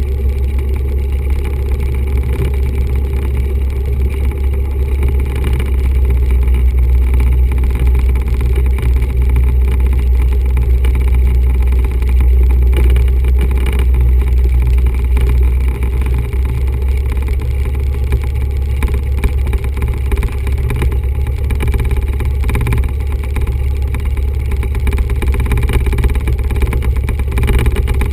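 Cessna 172's four-cylinder Lycoming piston engine and propeller running steadily while the plane taxis on the ground, a loud low drone heard from inside the cabin.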